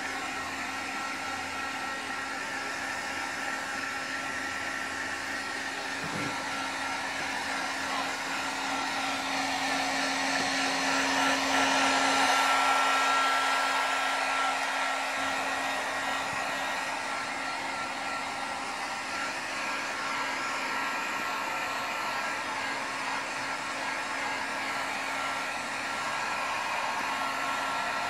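Handheld electric heat gun running steadily: a blowing fan noise with a steady hum and a faint whine. It grows louder about halfway through, then eases back as the gun is swept back and forth over a car headlight lens.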